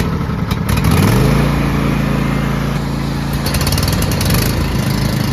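Riding lawn mower engine that speeds up during the first second, then runs steadily at high speed.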